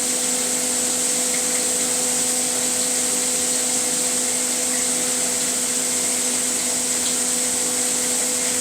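Thick-cut bacon sizzling in a frying pan as its fat renders: a steady high hiss, with a low steady hum underneath.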